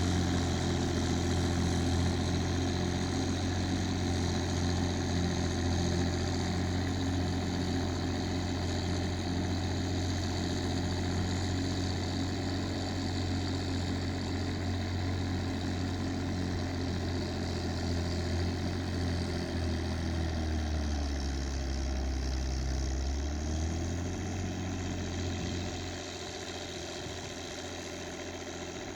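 Case 1694 tractor's diesel engine running steadily. About twenty seconds in its note dips and then rises again, and near the end it grows somewhat quieter.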